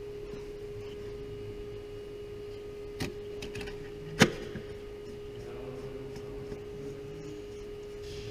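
A steady hum on one pitch, with two sharp clicks about three and four seconds in, the second louder.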